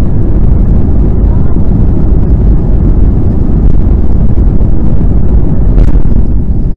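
Airliner jet engines at takeoff power heard from inside the cabin, a loud steady rumble as the plane rolls down the runway. Near the end a single sharp crack comes as the right engine stalls and throws out sparks.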